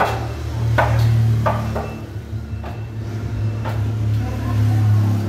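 About five irregularly spaced hammer knocks on plywood over a steady low hum.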